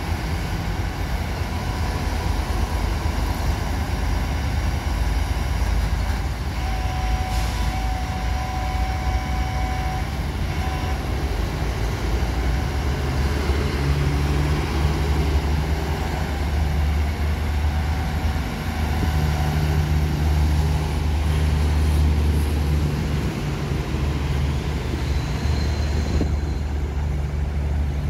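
Hydraulic excavator's diesel engine running steadily while it lifts and sets precast concrete U-ditch segments, the low drone growing stronger about halfway through. A higher steady whine sounds for a few seconds near the start, and there is a single knock about seven seconds in.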